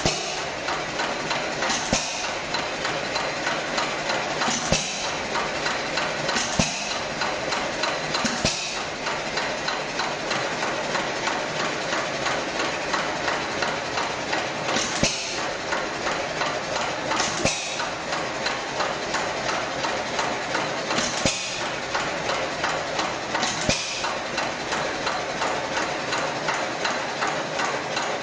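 Hit-and-miss stationary engine running: a sharp firing stroke every two seconds or so, with a fast mechanical clatter as the flywheel coasts in between. The uneven spacing, including one coast of about six seconds with no firing, is the governor skipping power strokes to hold speed.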